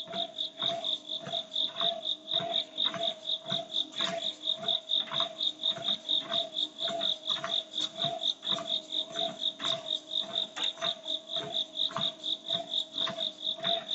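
Background music with a steady beat: a high tone and a lower tone pulse together over regular percussive ticks.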